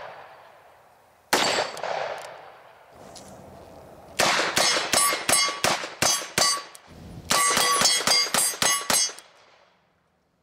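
Smith & Wesson 686-6 .357 Magnum revolver fired: a single shot about a second in, then two rapid strings of double-action shots. The steel plates clang and ring as they are hit.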